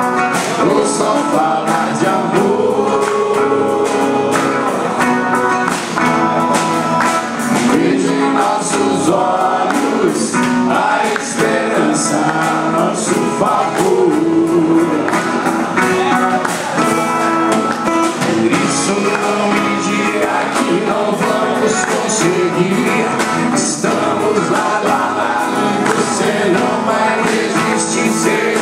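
Music: a song with singing over instruments and a steady percussive beat.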